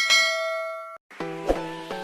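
Notification-bell ding sound effect: one bright ringing chime that holds for about a second and cuts off suddenly, followed after a brief gap by a short stretch of chiming music.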